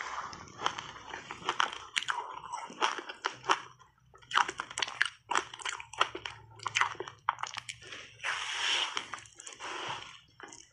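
Crunching bites and chewing of frozen passionfruit block ice coated in matcha powder: many sharp, irregular cracks as the ice breaks between the teeth.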